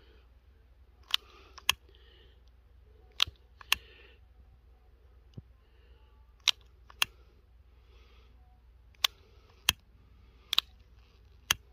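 Long-nosed utility lighter clicked over and over: about ten sharp clicks in pairs, each trigger press and release about half a second apart. No flame shows at the fuse, so the lighter is not catching.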